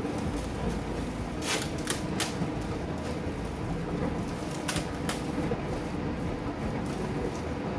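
Packaging being handled as a small boxed picture frame is unwrapped: steady rustling with about five sharp clicks or crackles.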